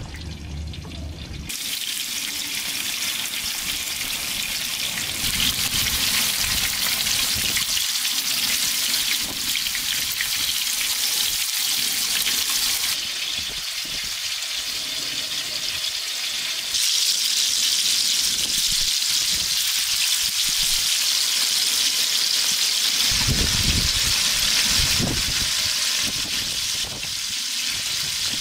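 Pieces of fish sizzling steadily as they fry in a wide pan of hot oil over a wood fire. The sizzling sets in shortly after the start.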